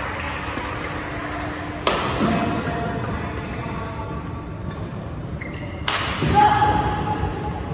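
Badminton rally: two sharp racket strikes on the shuttlecock about four seconds apart, echoing in a large hall, with shoe squeaks on the court mat after each and murmured voices behind.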